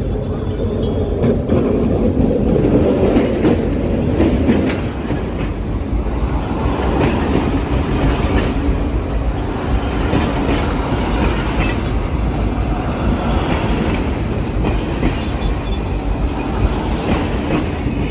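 Train running along the track, wheels clattering over the rails with irregular sharp clicks over a steady rumble. The train is led by a GM G22W-AC diesel-electric locomotive.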